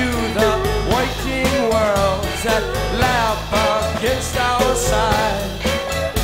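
Late-1960s psychedelic rock recording in an instrumental passage: bottleneck slide guitar bending and gliding in pitch over bass and drums.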